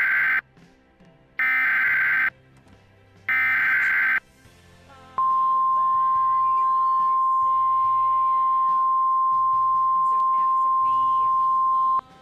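Emergency Alert System SAME header data bursts announcing an alert: the end of one burst, then two more, each about a second long with a short gap between. Then a single steady attention tone near 1 kHz is held for about seven seconds and cuts off sharply. Faint music plays underneath.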